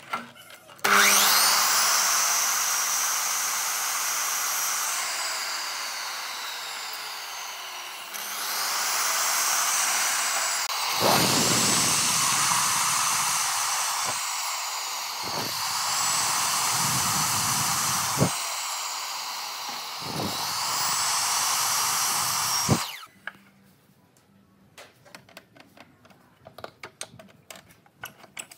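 Miter saw motor starting with a sudden whine and its blade making several cuts through stacked wooden boards, the sound thickening and dipping under load with each cut. It stops abruptly near the end, followed by a few light clicks and knocks.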